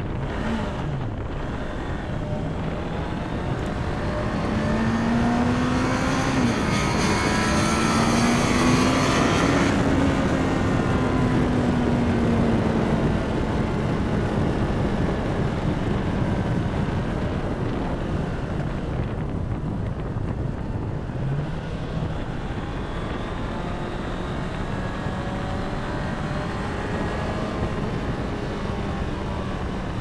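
2023 Honda CBR650R's inline-four engine, heard from the rider's seat over wind noise. The revs climb, dip briefly as it shifts up about six seconds in, and peak about ten seconds in, then ease off and run steadily.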